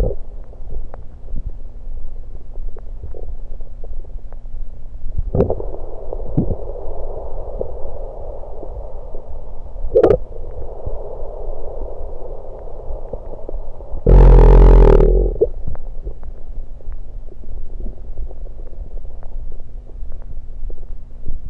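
Close-miked human stomach gurgling and rumbling continuously after gulping carbonated diet soda, with a few sharp clicks. A very loud burst about fourteen seconds in lasts about a second and a half.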